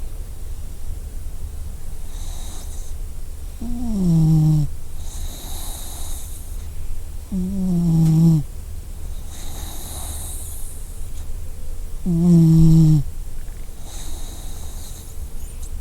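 A dog snoring in a slow regular cycle: three loud snores about four seconds apart, each falling in pitch. A softer hissing breath follows each one, over a steady low rumble.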